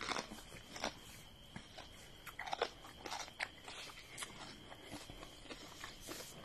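A person biting and chewing crunchy food: faint, irregular crisp crunches, the loudest a little after two and a half seconds in.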